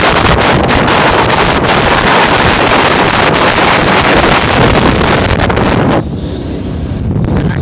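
Wind buffeting the microphone of a phone carried on a moving two-wheeler, a loud steady rush. About six seconds in it drops off abruptly, leaving a quieter low rumble of the ride.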